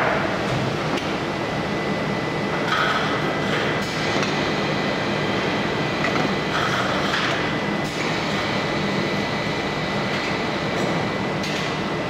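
Kataoka film slitter-rewinder running: a steady machine hum and hiss with a thin high whine, and a few brief louder hissing swells about every four seconds.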